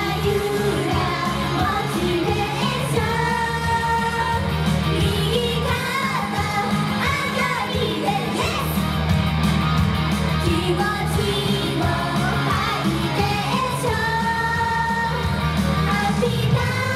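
Japanese idol pop song: voices singing a melody over a loud backing track.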